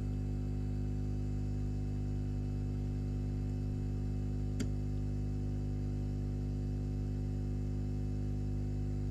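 Steady electrical hum at mains frequency, with its overtones unchanging throughout, and a single faint click about four and a half seconds in.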